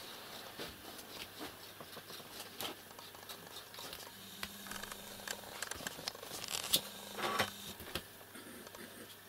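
Quiet room with scattered small clicks and rustles over a faint steady low hum, with a few louder clicks about seven seconds in.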